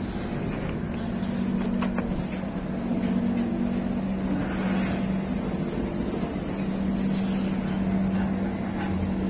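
An old Mercedes-Benz truck's engine running steadily with a held low hum while it pulls a string of loaded rail wagons.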